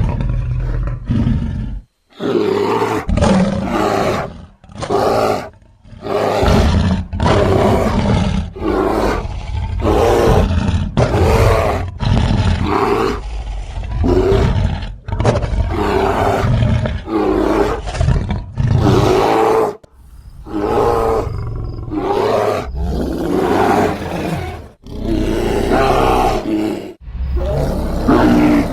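Bear roars and growls edited together as a sloth bear sound effect, mixed from sloth bear, grizzly and black bear recordings: a rapid string of short, rough calls, one after another with brief pauses.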